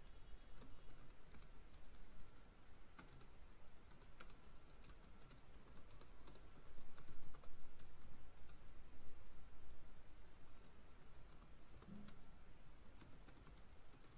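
Typing on a computer keyboard: key clicks in quick, irregular runs with short pauses.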